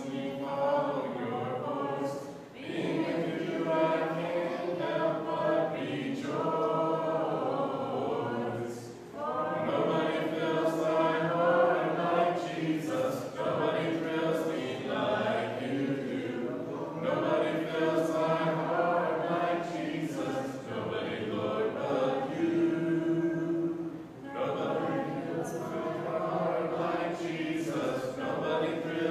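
Church congregation singing a hymn a cappella, many voices together, with brief pauses between phrases.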